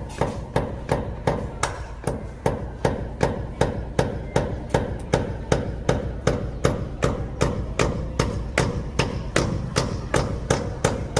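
Steady, even hammer blows, about three a second, during plumbing work on an SWR drain pipe.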